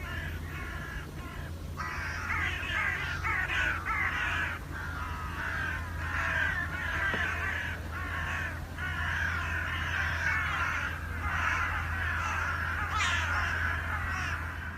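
A flock of crows cawing, many harsh calls overlapping, sparse at first and then nearly continuous from about two seconds in, over a steady low hum.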